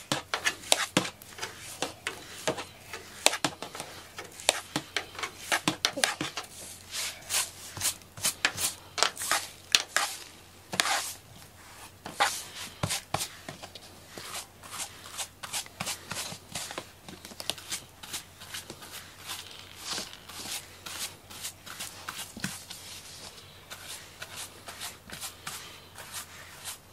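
Pink rubber grooming brush stroked over and over through a cat's short fur: rapid, repeated brushing strokes.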